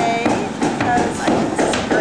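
A woman speaking over background music with a steady beat of about two beats a second.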